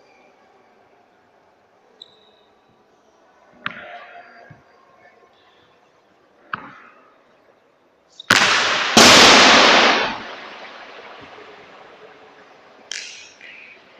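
Roller hockey shots in a sports hall: a few sharp, echoing knocks of the hard ball being struck and hitting the rink, with one much louder crash about eight seconds in that lasts nearly two seconds.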